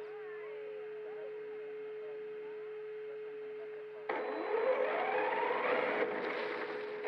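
A steady single-pitched hum, then about four seconds in a sudden rush of noise with a whine rising in pitch, typical of an RC car's electric motor speeding up.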